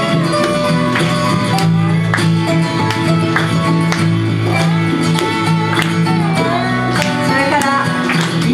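Acoustic folk band playing live: strummed acoustic guitars holding steady chords, with a fiddle and other plucked strings playing over them.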